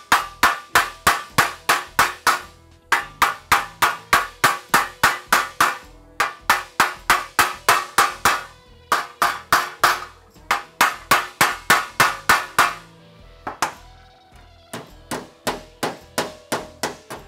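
Body hammer striking the edge of a sheet-steel patch panel, about four to five blows a second in runs of a few seconds, bending a curve into its end. The last run, after a pause near the end, is quieter. Background music plays underneath.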